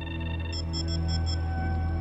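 Film soundtrack: a steady, deep synthesizer drone, and from about half a second in a quick run of high electronic beeps. The beeps are the sound effects of the photo-enhancing machine as it responds to spoken commands.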